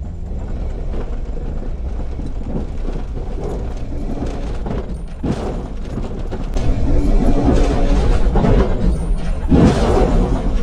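1992 Jeep Cherokee driving hard over rough dirt, the engine running under load with rattles and knocks from the body and suspension; it gets louder about two-thirds of the way in.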